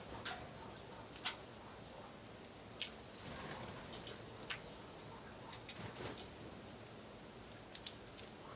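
Sharp, irregular clicks and taps, about six in all and a second or more apart, with two close together near the end: small birds, great tits and blue tits, pecking and hopping at a bird feeder.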